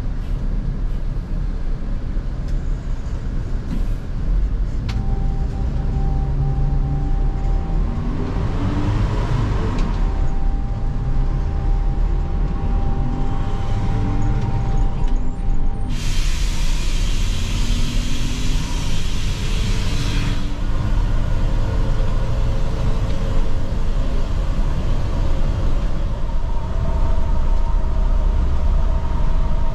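Inside a coach on the move: steady diesel engine and road rumble, the engine note rising several times as the coach pulls away from a toll gate and works up through the gears. A sudden hiss of air starts a little past halfway and cuts off about four seconds later.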